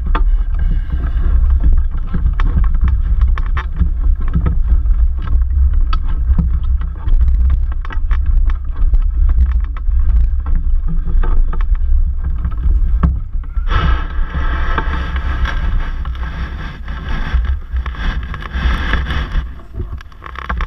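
Wind buffeting the microphone of a camera mounted on a hang glider's wing: a heavy, low rumble with scattered clicks. About two-thirds of the way through, a louder hissing rush sets in.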